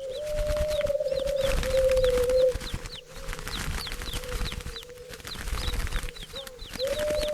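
Birds: wings flapping and rustling, with rapid short high chirps and a long steady low call that lasts about two and a half seconds and comes again near the end.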